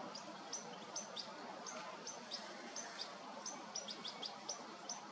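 Juvenile European goldfinch begging while being fed: short, high, downward-hooked calls repeated steadily about three times a second.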